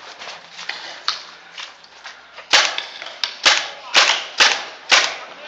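Tippmann TPX paintball pistol firing a quick string of about six sharp pops, beginning about halfway in.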